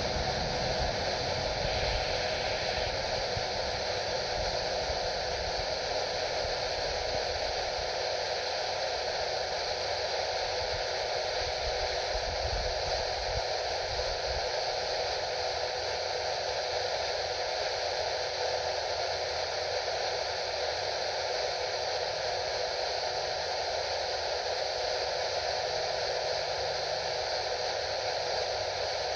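Steady hiss of radio static from a receiver's speaker, with no station or voice coming through.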